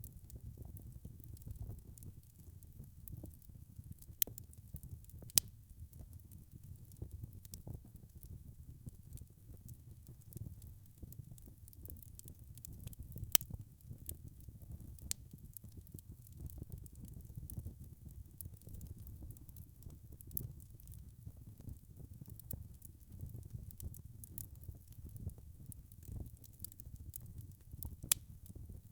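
Wood fire burning in a fireplace: a steady low rumble of flames with frequent sharp crackles and pops, a few louder snaps standing out.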